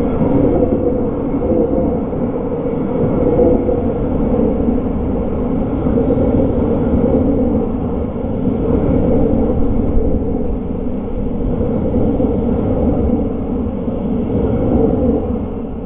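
Six-car Tobu 253 series 1000 subseries electric multiple unit running past, a steady, even rail running noise with no distinct clicks or horn. It eases off slightly near the end.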